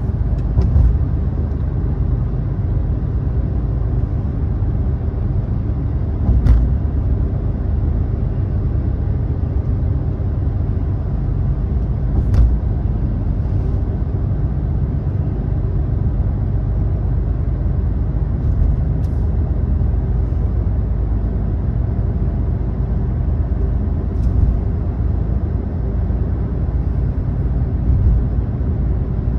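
Steady low rumble of a car's tyres and engine heard inside the moving cabin on an expressway. A short thump comes every five or six seconds as the tyres cross the road's joints.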